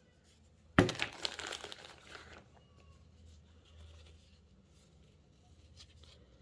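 A bag of cloth patches being handled, crinkling and rustling sharply for a second or two about a second in, then only faint rustles.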